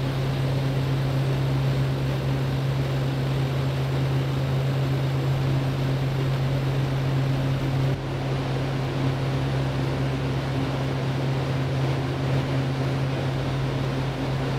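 Portable air compressor's diesel engine running steadily at about 1300 rpm, unloaded, in its engine cooldown sequence just before automatic shutdown.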